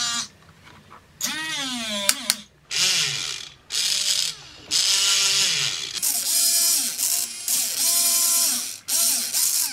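Robot arm's motors whining and grinding as the arm moves a makeup brush, in about seven bursts of a second or so. The pitch glides up and down within each burst, with short pauses between moves.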